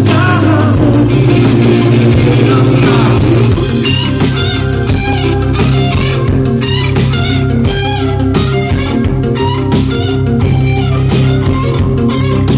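Live rock band playing: drums, bass, guitars and keyboards with a male lead vocal. About three and a half seconds in, the dense full sound drops back to a sparser groove of drum hits under a wavering high melodic line.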